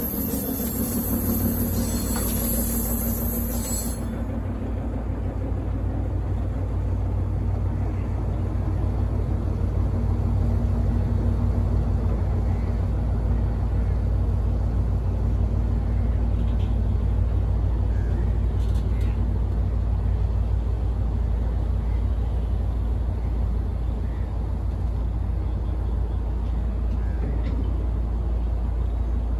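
Hitachi-built diesel shunting locomotive running as it moves close by, then a rake of empty flatbed freight wagons rolling past on the rails with a steady low rumble.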